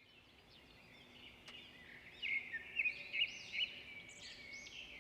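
Small birds singing, a run of quick high chirps and arching whistled notes, loudest between about two and three and a half seconds in.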